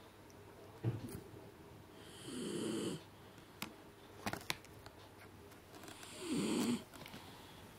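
Jack Russell terrier snoring: two rasping snores, each under a second, about four seconds apart. A few faint clicks fall between them.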